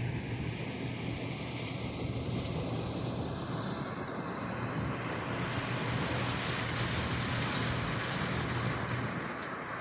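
An engine running steadily: a constant low hum under a broad wash of mechanical noise.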